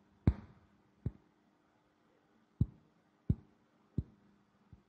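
Six sharp clicks at uneven intervals, over a faint steady electrical hum from an opened microwave oven.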